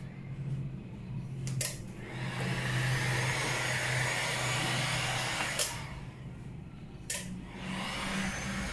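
Electric heat gun running, a steady blowing hiss over a low motor hum, used to soften tint film so it lies down on the headlight lens. The hiss is loudest through the middle, and three sharp clicks break in.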